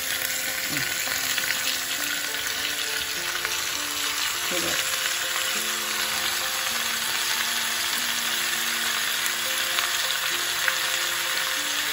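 Chopped raw vegetables (green beans, peppers, tomatoes, potatoes, onion) sizzling in hot oil in a frying pan, a steady frying hiss just after they are tipped in.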